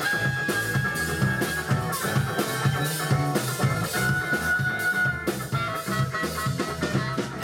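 Live band playing an instrumental passage: a clarinet holds long notes over electric guitar, double bass and drum kit.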